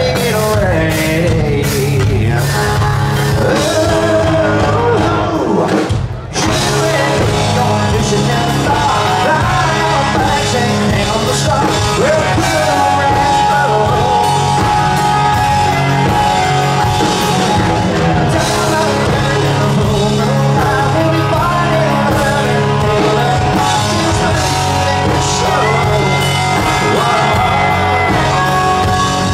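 Live rock band playing a song: lead singing over acoustic and electric guitars, bass and drums, with a brief break about six seconds in.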